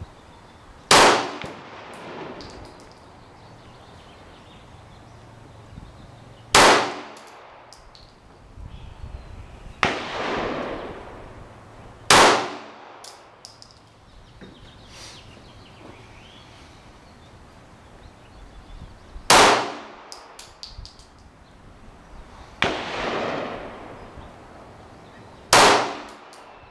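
Glock 17 9mm pistol fired in slow single shots, five in all, several seconds apart. Each shot is a sharp crack with a short ringing tail. Two softer, more drawn-out bangs fall between them, about ten seconds in and again a little after twenty seconds.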